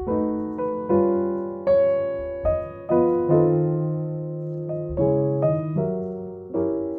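Background piano music: a slow keyboard melody with chords, the notes struck about once or twice a second and each left to fade away.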